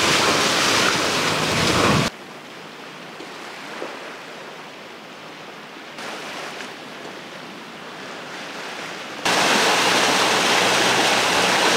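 Steady rush of wind and sea water past a sailing yacht under way. It drops abruptly to a much quieter hiss of water about two seconds in, and jumps back to a louder rush of wind and water near the end.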